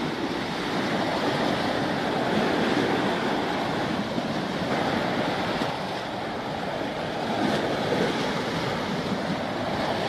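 Small waves breaking and washing on a shingle beach in a steady surge that swells and eases, with wind buffeting the microphone.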